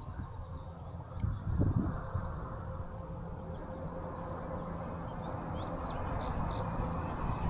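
Insects, crickets among them, droning steadily in the prairie grass, with a few short bird chirps past the middle, over a low rumble.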